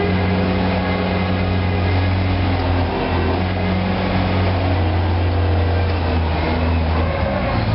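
Bendi articulated forklift running as it drives down the aisle: a steady low hum with a faint higher whine over it.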